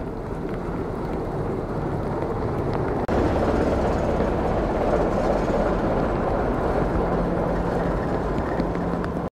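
A train passing close by: the locomotive and wagons rolling over the rails, a steady loud running noise with a low engine hum. The sound drops out for an instant about three seconds in and comes back louder.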